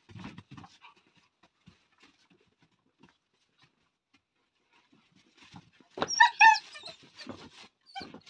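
Puppies at play: soft scuffling at first, then about six seconds in two short, high-pitched yelps in quick succession, and one fainter yelp near the end.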